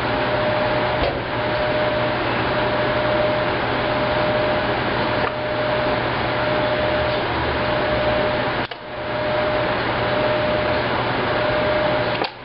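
A Maytag SoftMount commercial washer running: a steady noisy whir with a constant whine and a low hum under it. The sound briefly dips twice in the second half.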